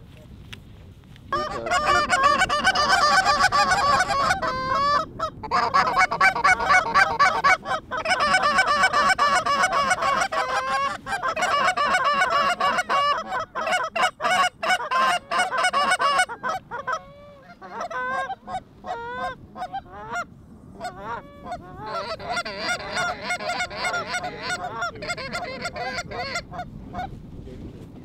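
A chorus of Canada goose honks, many calls overlapping, beginning about a second in and continuing almost to the end. The honking is densest and loudest for the first half, thins to scattered calls for a few seconds, then swells again before fading.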